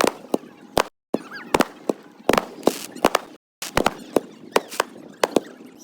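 Fireworks going off: an irregular string of sharp bangs and crackles, several a second, broken twice by a brief drop to silence.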